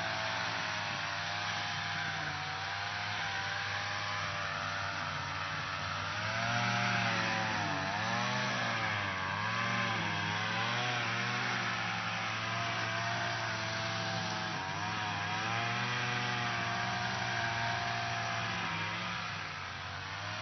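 Lawn mower engine running steadily, its pitch wavering up and down several times in the middle before settling again.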